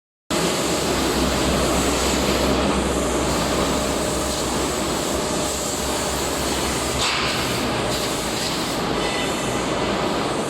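Industrial tire shredder of a TDF1800 tire-derived-fuel line running: a loud, steady mechanical rumble and grinding over a low hum.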